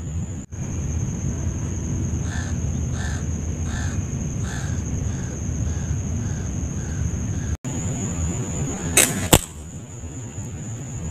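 A crow cawing about eight times in an even series, fading, over a steady low rumble. Near the end come two sharp cracks a split second apart, the loudest sounds, from a slingshot shot.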